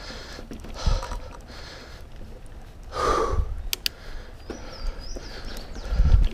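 Mountain biker breathing hard while riding, with loud exhales about a second in and around three seconds in. Low thumps from the bike jolting over the trail come through the microphone, along with a few sharp ticks.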